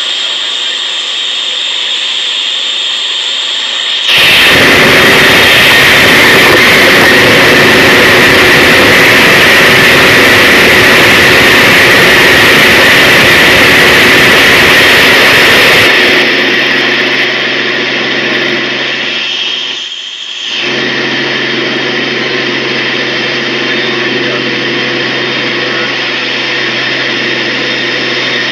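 Helicopter cabin noise picked up by an onboard camera: the steady drone of the engine and rotor with a whine running through it. About four seconds in it jumps much louder and harsher for some twelve seconds, then settles back to a steadier, lower hum, with a brief dip near the twenty-second mark.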